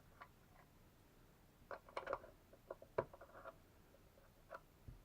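Faint handling sounds in a quiet room: a scattered run of light clicks and scrapes about two seconds in, and one more near the end.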